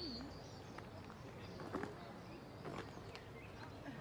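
Faint outdoor ambience with a few light, irregular taps.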